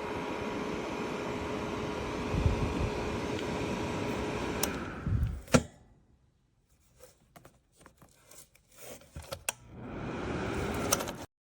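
Small fan-forced electric space heater running with a steady whir and hum, then clicked off about five seconds in, its fan winding down. A few light clicks follow. Near the end it is switched back on and the fan spins up again before the sound cuts off abruptly.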